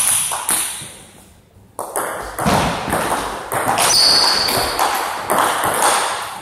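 Table tennis rally: the celluloid ball clicking off the rubber paddles and bouncing on the table in quick succession, echoing in a large hall. A brief high squeak sounds about four seconds in.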